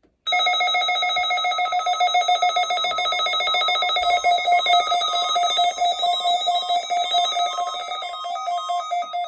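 Weather radio receiver's built-in alarm going off when the National Weather Service's warning alarm tone is tested: a loud electronic tone with a fast pulsing flutter, starting just after the start.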